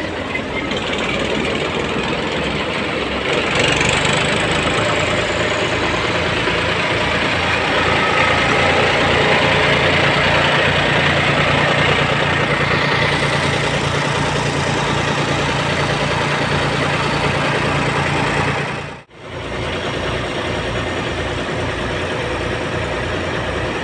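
A Surya threshing machine running off a Mahindra 295 DI Turbo tractor: the tractor engine and the spinning thresher and blower make a loud, steady mechanical noise with a humming tone. The noise grows louder a few seconds in and drops out for a moment near the end.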